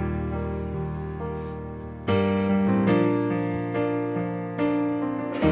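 Slow piano music: sustained chords, with new chords struck about two seconds in and again near the end.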